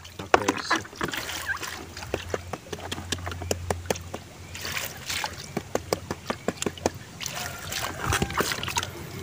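Gourami fry splashing in a tub of water and flicking against a perforated plastic sorting basket: small splashes and drips with many short sharp ticks.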